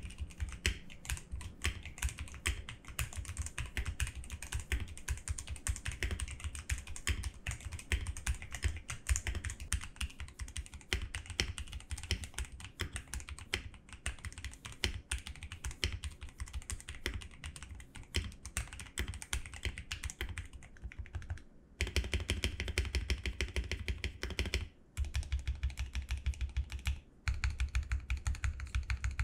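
Mechanical keyboard with Otemu Black linear switches being typed on in a sound test, a steady run of fast key clacks; the switches have been lubed by dripping Gamma Premium Lube into them. After a short pause about three-quarters of the way through, the typing turns denser and louder, with two brief stops near the end.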